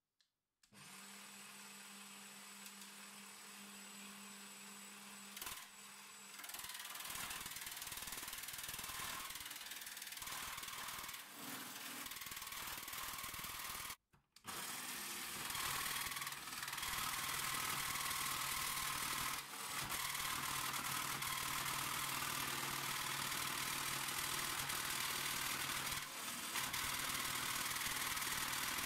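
Jigsaw cutting a thin stainless steel sheet, fed slowly along a straight line; pretty noisy. It starts about a second in, grows louder after several seconds and breaks off briefly about halfway.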